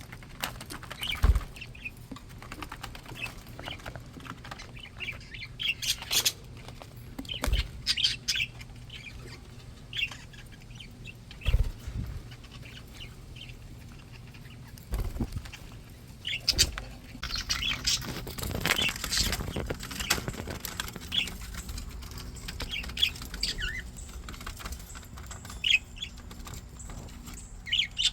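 Pet budgies chirping and chattering on and off, busiest a little past the middle, with several sharp low thumps among the calls and a faint steady hum underneath.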